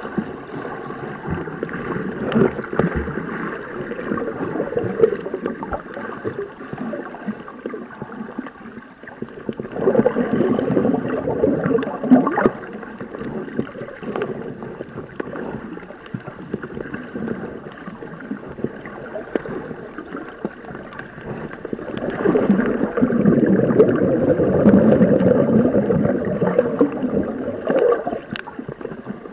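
Muffled underwater water noise with gurgling, heard by a submerged camera, swelling louder briefly about ten seconds in and again for several seconds near the end.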